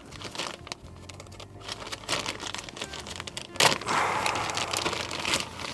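Plastic packaging crinkling and small parts clicking as a diesel heater glow plug kit is handled, with a sharper click about three and a half seconds in followed by a couple of seconds of rustling.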